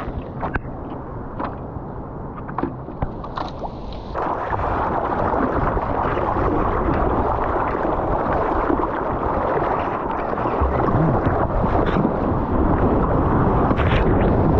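Sea water lapping and splashing close to a surfboard-mounted action camera, with scattered short splashes of paddling. About four seconds in it turns into a louder, steady rush of water as the board catches a small wave and rides it, with spray splashing over the camera near the end.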